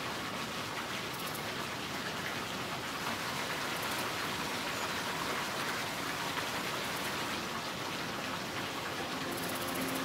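Thin waterfall: a narrow stream of water falling from a rock ledge and splashing steadily into a shallow pool, a continuous spattering hiss.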